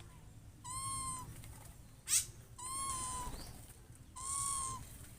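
Owl calling: three even-pitched, slightly raspy calls about half a second each, repeated every second and a half to two seconds. A short, sharp rising squeak about two seconds in is the loudest sound.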